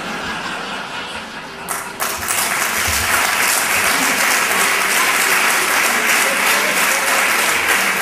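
Audience applauding, starting quietly and swelling to full, steady applause about two seconds in.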